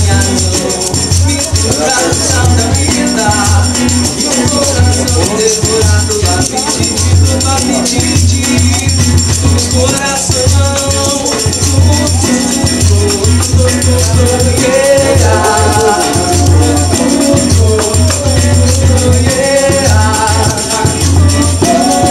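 Live acoustic music: a voice sings over a strummed acoustic guitar, a large drum hit by hand with a steady low beat, and a shaker.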